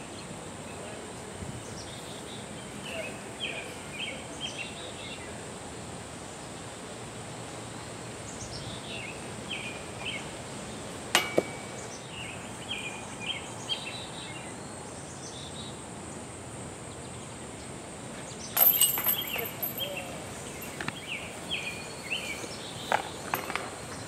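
Discs striking a disc golf basket: one sharp metallic clank with a short ring about eleven seconds in, a louder clatter into the chains about three-quarters through, and a few lighter clinks near the end. Underneath, birds chirp in short repeated phrases over a steady high insect buzz.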